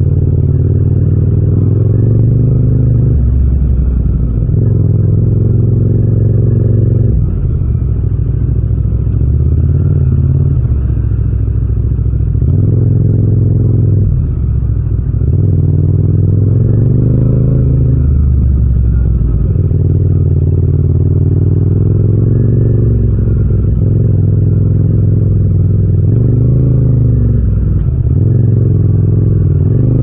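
Yamaha MT-07's 689 cc parallel-twin engine riding at low speed through traffic. The revs rise again and again as it pulls through the gears, then drop off between pulls.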